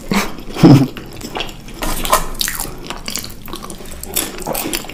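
Close-miked chewing of sticky chocolate-coated snacks, full of wet mouth clicks and smacks, with a short closed-mouth hum under a second in.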